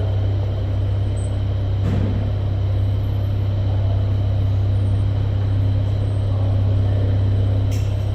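A steady low hum with a rough rumbling noise over it, and a couple of faint clicks, about two seconds in and near the end.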